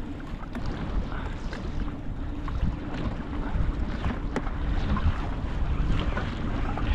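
Wind buffeting the microphone on a small boat at sea, over the wash of the water, with a few light knocks.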